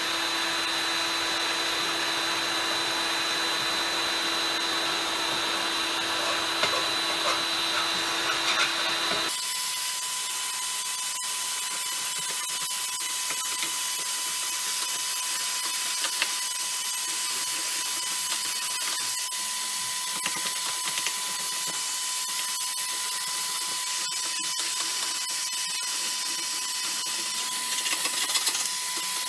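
Electric heat gun blowing steadily, softening old paint on a steel tube frame so it can be stripped; its tone changes abruptly about nine seconds in. A few light scrapes near the end.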